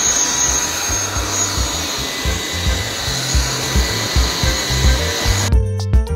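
Cordless stick vacuum cleaner running, a steady whirring hiss with a high whine, over background music with a low bass line. The vacuum stops suddenly about five and a half seconds in, leaving only the music.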